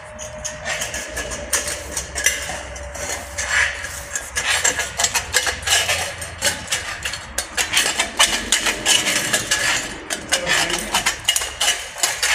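Aviation snips cutting notches into the flange of a sheet-steel drywall U track: a rapid run of sharp metallic snips and clinks, getting busier about four seconds in.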